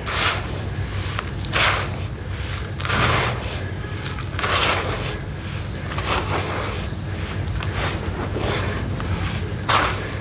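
Clumps of dusty sawdust and sand crumbling and dropping into water: a string of short, crackly rushes, one every second or two, the loudest near the start and near the end.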